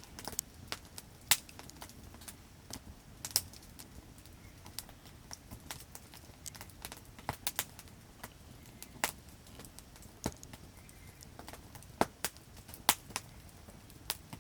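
Wood campfire crackling: irregular sharp pops and snaps, a few of them much louder than the rest.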